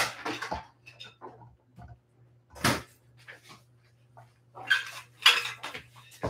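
A dog mouthing and nosing a rubber chew toy, with short bursts of metallic clinking from its harness fittings and tags at the start, near three seconds in and again around five seconds.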